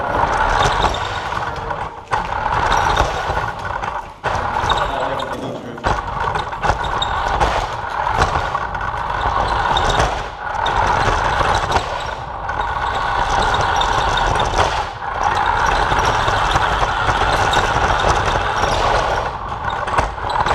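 A battery-powered toy Hummer's electric drive motor and gears whining as it drives over concrete, with tyre rumble underneath. The sound drops away briefly several times as the throttle eases and then picks up again.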